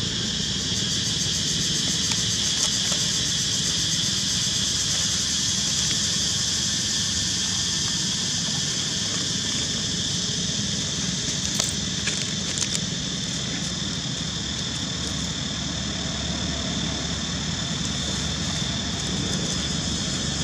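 Steady, high-pitched insect drone, likely a chorus of cicadas or similar insects, over a low, constant background rumble, with a few brief soft clicks near the middle.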